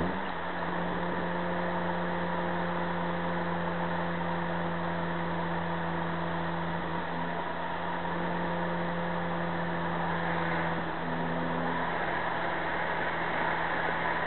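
Car engine running under way, heard from inside the cabin with steady tyre and road noise. The engine note holds steady, rises as the revs pick up at the start, and shifts pitch again about two-thirds of the way through.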